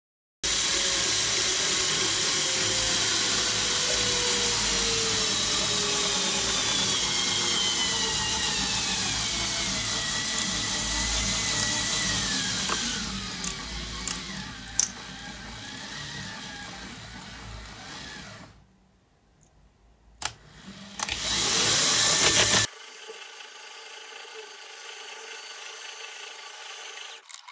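Small DC motor driving a 3D-printed PLA herringbone-gear reduction gearbox, running with a whine and gear noise whose pitch slowly falls as the motor slows under the load it is lifting. It stops abruptly about 18 seconds in, then spins up briefly with a rising whine, and a quieter steady hum follows.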